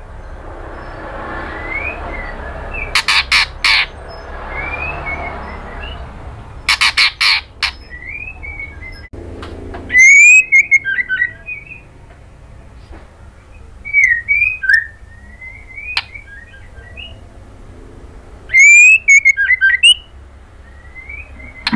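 Female white-rumped shama singing in a cage. Short, clear whistled upslurs are broken by loud bursts of rapid, sharp chattering notes about 3 and 7 seconds in. Louder, quick-fire whistled phrases come about 10 and 19 seconds in.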